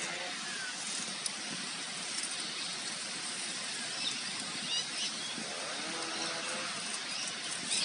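Steady outdoor background hiss, with a few faint short high chirps about two thirds of the way through.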